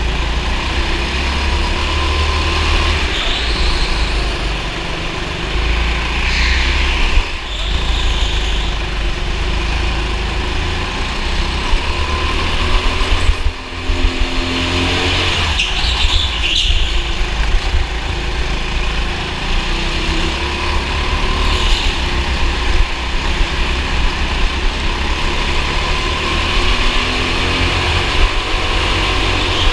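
Racing kart heard onboard, its engine revving up and down through the corners over a heavy low rumble. Several brief high squeals come in along the way.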